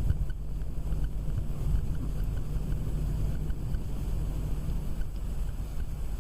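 Cooling fans of a freshly built desktop PC running steadily after power-on, a low whirring rumble of moving air.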